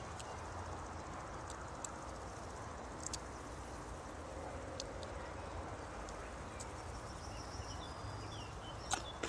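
Steady outdoor background hiss with a few sharp, light clicks scattered through it, and a few short bird chirps near the end.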